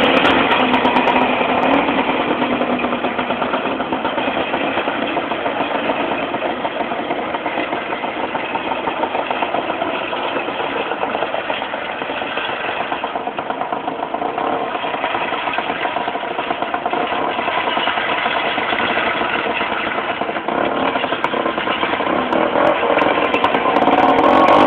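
Ockelbo 300 snowmobile's Sachs two-stroke engine running steadily as the sled drives off. It fades as it moves away and grows louder again over the last few seconds as it comes back.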